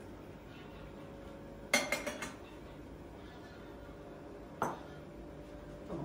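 Clinks from tea service: a metal Turkish double teapot and glasses being handled, with a quick cluster of sharp clinks about two seconds in and a single knock near the end.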